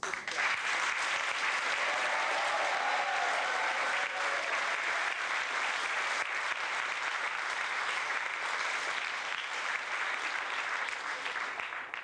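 Audience applauding: a dense, steady round of clapping that starts abruptly and dies away near the end.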